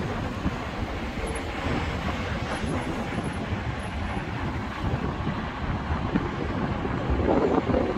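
Road traffic on a roundabout: cars and vans driving past in a steady wash of engine and tyre noise, swelling a little near the end as a vehicle passes close.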